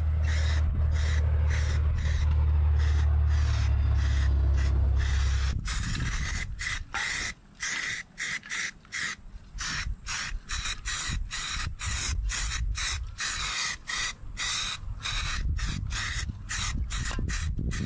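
Aerosol spray can of Rust-Oleum rusty metal primer hissing in rapid short bursts, about three a second, as it spot-sprays screw heads and rusted edges of metal siding. A low rumble runs under the spraying for the first five seconds or so, then drops away.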